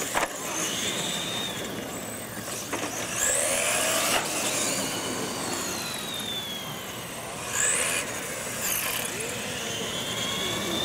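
Radio-controlled monster trucks racing on concrete: their motors whine high, rising and falling in pitch as the trucks speed up and slow, over tyre noise, with a few sharp knocks as they land off the ramps.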